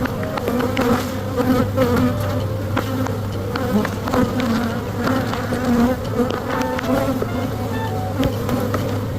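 Many honey bees buzzing around an opened hive, a dense wavering drone. Scattered light clicks and knocks from the hive being worked run through it.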